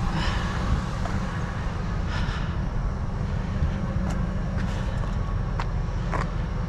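Steady low rumble, from wind on the microphone or an engine running nearby, with a few light clicks and rustles as scrap wire and junk are handled.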